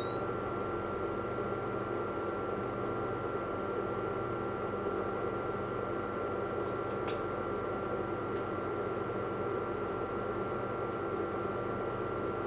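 Sine-wave test tone from a signal generator, swept up in pitch from about 3 kHz to about 6 kHz over the first four seconds or so, then held, stepping slightly lower near the end. This is the generator being retuned during a frequency-response sweep of a tape recorder's playback amplifier. A steady electrical hum and hiss run beneath it.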